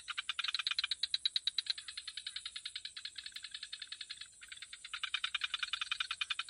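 Frogs calling in a fast, rattling pulse, about a dozen pulses a second, with a brief dip about four seconds in.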